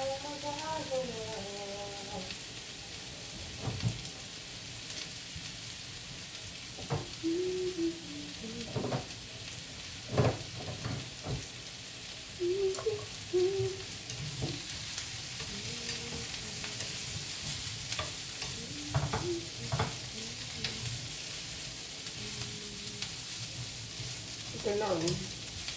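Meat, onion and zucchini frying in oil in a nonstick frying pan on a gas burner: a steady sizzle with scattered sharp knocks. Near the end a wooden spatula stirs the food around the pan.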